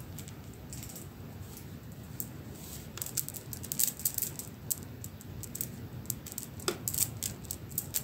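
A strand of beads rattling and clicking as the foot shakes, sparse at first, then in quick dense clusters from about three seconds in. A short squeak sounds near the end.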